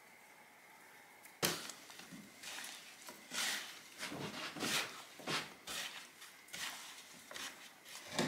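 Hands dredging small whole fish in a wooden bowl of flour: irregular soft rustling and patting strokes, starting about a second and a half in, with a few sharper knocks against the bowl.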